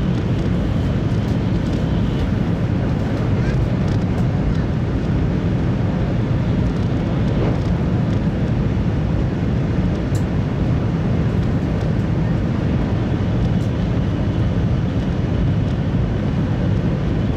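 Steady low rumble and rush inside the passenger cabin of a Taiwan High Speed Rail 700T train cruising at about 280 km/h.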